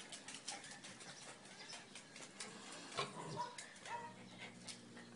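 Pets being handled: quiet scuffling with faint ticks and rustles, and a couple of brief, faint animal whines about three and four seconds in.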